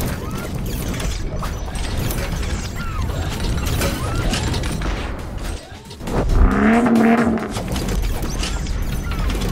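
Sound effects of an animated logo intro: a constant low rumble under a dense run of mechanical clicks and ratcheting, with a brief pitched swell about six seconds in.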